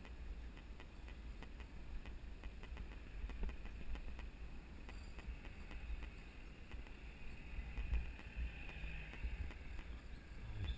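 Bicycle rolling along a concrete road, with a steady low wind rumble on the camera microphone and many light clicks and ticks.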